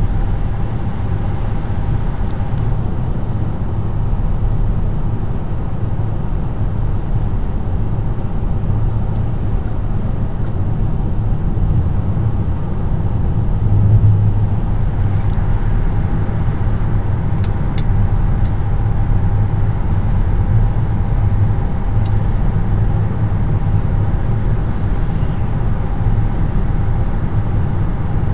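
Car driving at highway speed on an interstate: steady road noise from the tyres and engine, mostly a low rumble.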